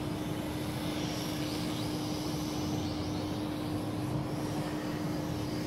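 Kai Deng K-60 X-Fighter toy quadcopter in flight, its motors and propellers making a steady buzzing hum with one held tone.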